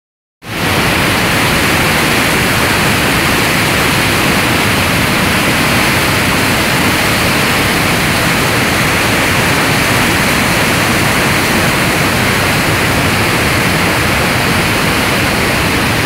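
Muddy flash-flood torrent rushing and churning through a walled channel: a loud, steady rush of water that starts abruptly about half a second in.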